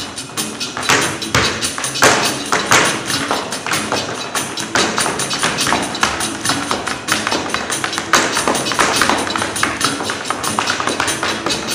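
Tap shoes striking the stage in fast, dense rhythmic runs, with music.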